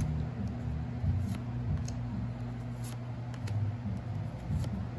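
Trading cards from a booster pack being flipped through by hand, giving several short, soft card clicks and slides, over a steady low hum.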